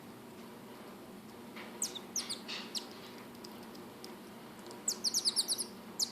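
Pet marmoset chirping: a few short, high, falling chirps about two seconds in, then a quick run of rapid high chirps near the end.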